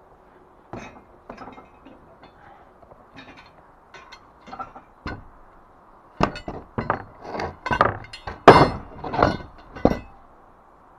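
Steel scaffold components clinking and clanking together as they are handled and fitted. A few light clicks come first, then a run of louder metal clanks from about six seconds in until just before the end.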